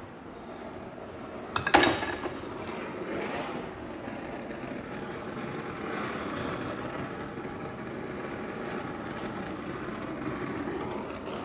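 Gas torch flame burning steadily while heating a steel expansion chamber, with one sharp knock about two seconds in.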